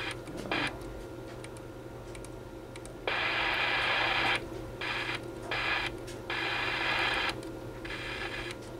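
CB radio receiver on AM hissing static that cuts in and out in several short bursts over a low steady hum. The strange signal the operator was tracking is absent.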